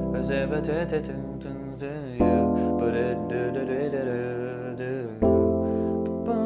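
Keyboard playing three held chords: C major, then E7(flat 9) about two seconds in, then F major 9 about five seconds in. This is the 3 chord turned dominant and leading into the 4. A voice sings a wavering melody over the chords.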